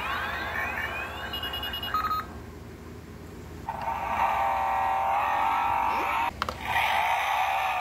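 Electronic sound effects from the Batmobile toy's small speaker: rising electronic glides near the start and a few beeps about a second and a half in, then two longer, louder sound effects starting about four and about seven seconds in.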